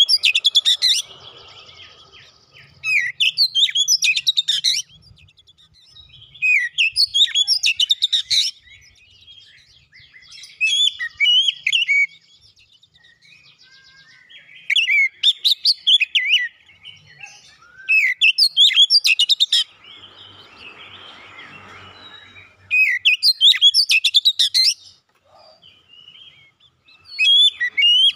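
Oriental magpie-robin (kacer) singing loud, varied phrases of quick rising and falling whistles and trills, each about one to two seconds long, repeated with short pauses between them.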